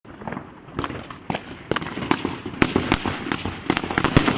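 Firework battery of crossettes and palms going off: a few separate sharp cracks, then from about two seconds in a denser, louder run of overlapping bangs and crackling.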